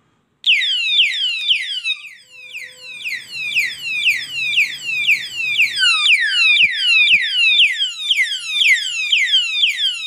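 Electronic siren of a touch-triggered security alarm padlock, set off by handling the lock: a rapid string of falling whoops, about four a second, starting about half a second in, with a few faint clicks from the lock being handled.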